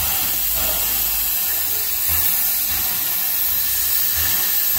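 Steady loud hiss of steam venting from the front end of a Terrier 0-6-0 tank locomotive, billowing from low down by the cylinders.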